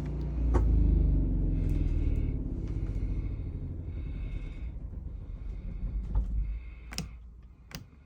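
Onan RV generator engine being shut off and running down, its pitch falling and its sound fading away over several seconds. Two sharp clicks come near the end.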